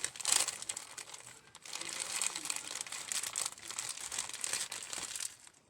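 Crinkly packaging being handled, in irregular crackles with a short lull about a second and a half in.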